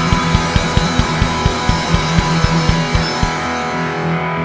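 Live rock band playing: a kick drum beating a fast, even pulse of about four strokes a second under a sustained electric guitar chord. The drum stops about three seconds in and the guitar keeps ringing.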